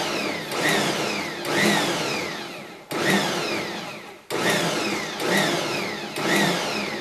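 Bosch Universal Plus stand mixer's motor jogged in short pulses while mixing flour, eggs and oil into a crumbly pasta dough. Each pulse starts suddenly and winds down, with a repeating pattern about once a second. New pulses come about three seconds in and again a second and a half later.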